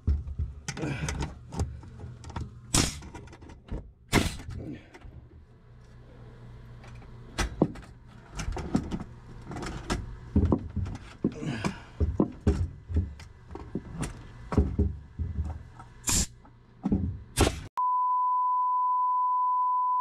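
Pierce pneumatic nail gun firing again and again, driving nails into wooden boards, each shot a sharp bang at irregular intervals with smaller clatters between. Near the end it gives way abruptly to a steady, high electronic beep lasting about two seconds.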